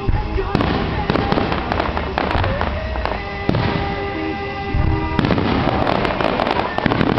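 Fireworks bursting in the sky, with volleys of sharp pops and crackles about half a second in and again from about five seconds in. Music plays underneath throughout.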